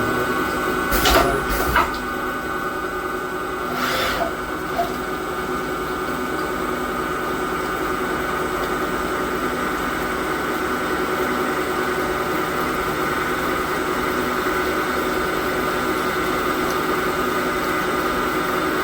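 Microcut Challenger BNC-1840 CNC lathe running under programme control, a steady whine of several tones. A few sharp clicks or knocks come in the first four seconds.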